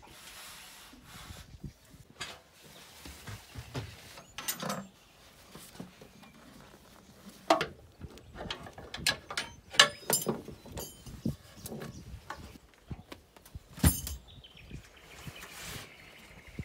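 Irregular knocks, clicks and metallic rattles of a boat bow tent being taken down: its metal poles and fittings handled against the aluminium boat, with two louder knocks in the second half and the tent's fabric rustling near the end.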